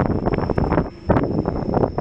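Wind buffeting the microphone in ragged, irregular gusts, with a thin steady high-pitched tone underneath.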